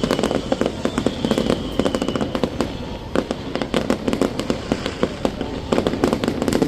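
Fireworks going off in quick, irregular succession, a dense run of sharp pops and bangs, with a faint high whistle falling in pitch over the first two seconds.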